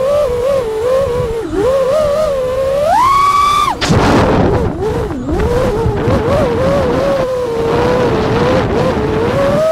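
Diatone Roma F5 5-inch FPV quadcopter's motors and propellers whining, the pitch wavering with the throttle. About three seconds in the whine climbs sharply on a throttle punch, then cuts off suddenly and gives way to a rushing wind noise in a dive before the motor whine comes back.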